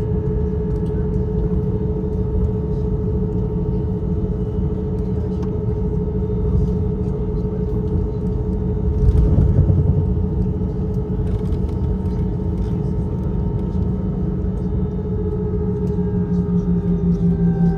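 Airbus A319 cabin noise at a window seat: a steady engine hum with a constant tone over a low rumble, swelling into a heavier rumble about nine seconds in.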